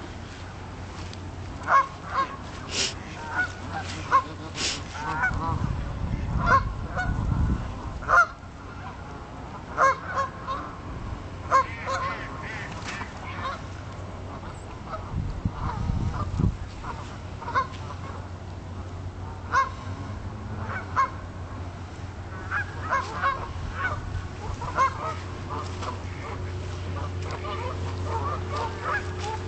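A flock of Canada geese honking: short calls every second or so, some overlapping, with a couple of low rumbles underneath.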